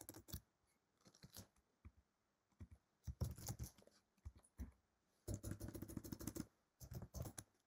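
Faint typing on a computer keyboard: quick runs of key clicks, with the longest, busiest run a little after the middle.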